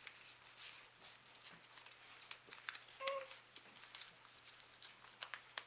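Faint, scattered crinkles and crackles of a small foil snack wrapper handled in the fingers, with a brief pitched sound about three seconds in.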